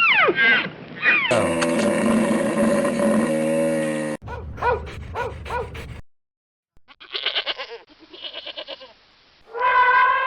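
A run of animal calls in separate, abruptly cut clips: a few high calls that drop quickly in pitch, then a long drawn-out bleat, a string of short quick calls, and after a brief gap a long call that sinks in pitch at the end.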